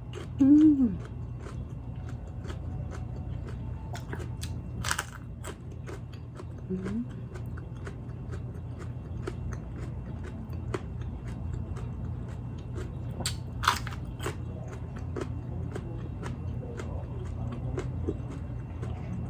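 Close-up mouth sounds of eating a raw green chili pepper dipped in ssamjang: steady crunchy chewing with many small wet clicks, and louder crunching bites about five seconds in and again around fourteen seconds. A short hummed "mm" comes right at the start.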